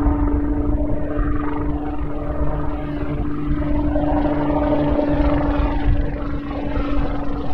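Westland Sea King helicopter flying overhead: a steady rotor chop under a constant whine.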